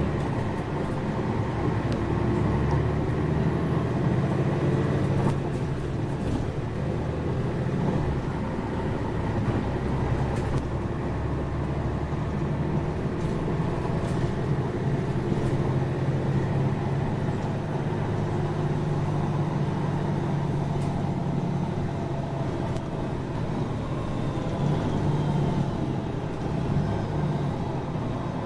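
Mercedes-Benz Citaro city bus running along the road, its engine hum and road noise heard steadily from inside the passenger cabin.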